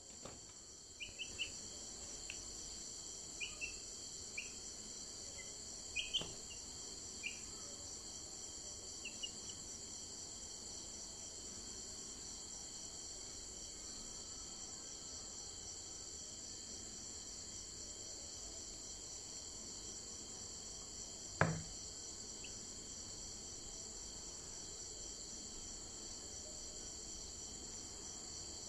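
Steady high-pitched insect chorus with a fine, even pulsing, running throughout. A few short high chirps sound in the first ten seconds, and a single louder sudden sound comes about 21 seconds in.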